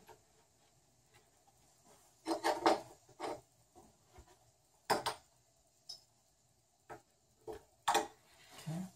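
Handling sounds of a measuring tape being laid and pressed along the edge of a plywood board: scattered light knocks and rustles, a short group about two seconds in, then single taps every second or so.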